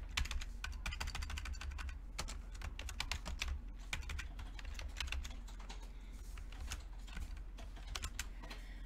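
Typing on a computer keyboard as a line of text is deleted and retyped: a quick run of key clicks that thins out in the second half.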